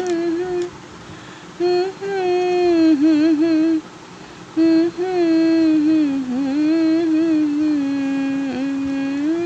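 A woman humming a slow, wordless melody in phrases, with short breaks about a second in and around four seconds in.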